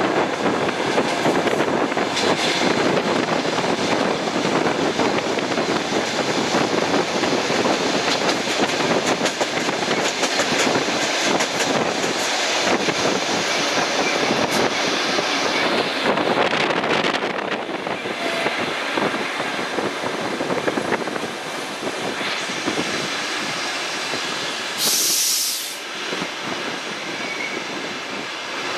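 Suburban train running on the rails, wheels clattering and the running noise easing as it slows into a station. A short high hiss comes near the end.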